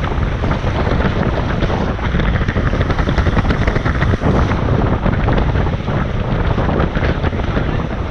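Wind buffeting the microphone over water rushing and slapping along the hulls of a Tornado catamaran sailing upwind in a strengthening breeze.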